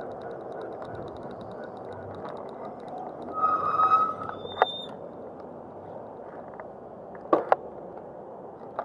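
Razor MX500 electric mini dirt bike on the move: a steady rush of motor, tyre and wind noise. A short high squeal comes about three and a half seconds in, and two sharp clicks come near the end.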